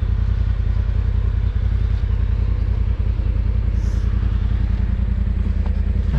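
Off-road vehicle engine running steadily at an even, low pitch, its firing pulses coming fast and regular.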